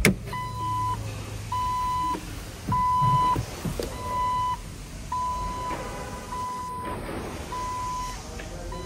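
The 2004 Jeep Wrangler's interior warning chime beeping steadily, one half-second tone about every 1.2 seconds, eight times in all. Soft handling knocks sound under it.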